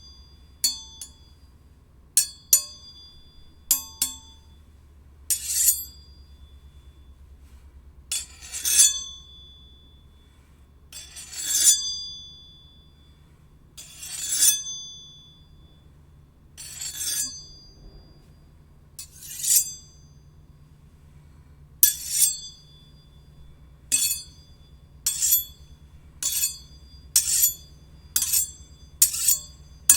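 Steel blades striking and sliding against each other, each contact ringing out metallically at a few clear high pitches. There are a few short clinks first, then several longer scraping strokes that ring on. From about two-thirds of the way through come quicker strikes, roughly one a second.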